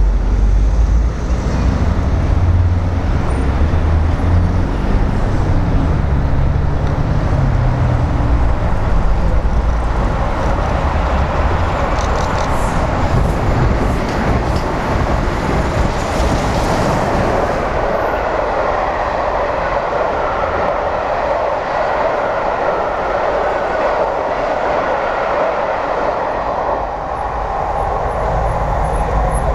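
Steam locomotive 60163 Tornado, a three-cylinder Peppercorn A1 Pacific, passing close with its Pullman coaches. It starts as a deep rumble and gives way in the second half to a steady rush of wheels on rail as the coaches run by, with a few clicks partway through.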